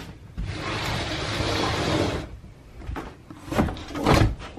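A sliding door rolling along its track for about two seconds, then two heavy footsteps thudding on a bare wooden subfloor about half a second apart.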